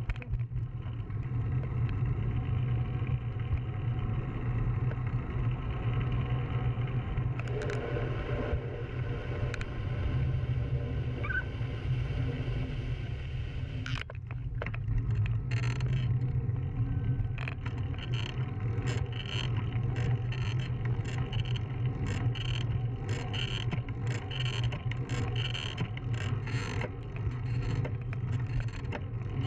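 A bicycle ridden on an asphalt path, heard from a handlebar-mounted camera: a steady low rumble of wind on the microphone and tyre noise. From about halfway on, a regular clicking comes in, roughly twice a second.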